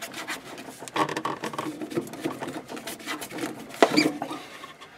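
Scraping, rustling and small clicks of hands working a boiler's condensate trap loose at its compression nut and sliding it down, with one sharper click about four seconds in.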